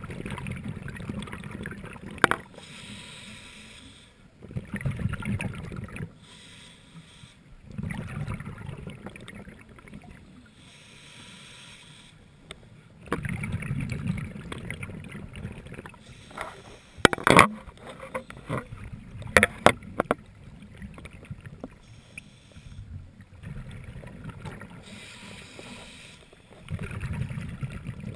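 Scuba diver breathing through a regulator underwater: a hiss on each inhale alternates with a bubbly rumble of exhaled bubbles, in a slow cycle of about five seconds. A few sharp clicks come about two-thirds of the way through.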